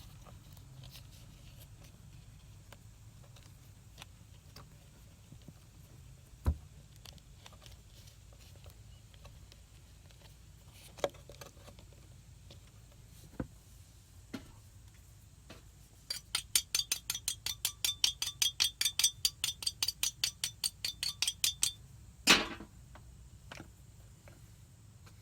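Hands working on a wiring harness repair: scattered small clicks and knocks, then about six seconds of fast, even ratcheting clicks, about five a second. A single loud knock or scrape follows.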